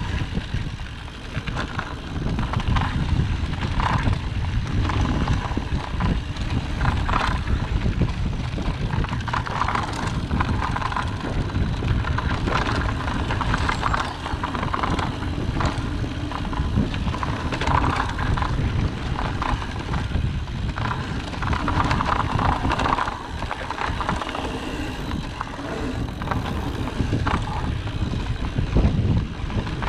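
Mountain bike riding along a dirt forest singletrack: tyres rolling on the dirt and the bike rattling and knocking over bumps, with a steady rumble of wind on the microphone.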